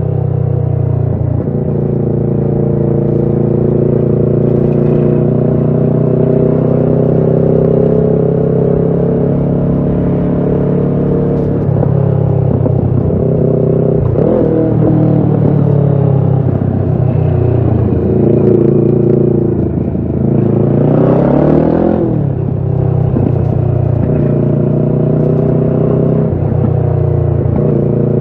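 Kawasaki Ninja 650's parallel-twin engine through a Shark full exhaust system, loud and mostly holding a steady engine speed while riding. Near three-quarters through, the revs climb quickly for about a second and a half, then drop suddenly at a gear change.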